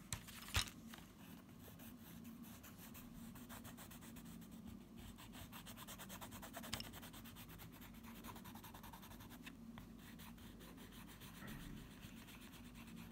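Faint, fast back-and-forth scratching of a Stabilo watercolour pencil shading over a plywood cut-out, the lead filling in a shape solid. One sharp knock comes about half a second in.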